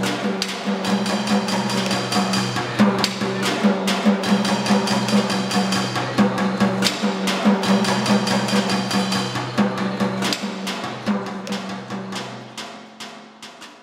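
Found-object percussion from a sound-art installation: drums, barrels, pots and other objects struck in an irregular, clattering pattern over a steady low drone, fading out near the end.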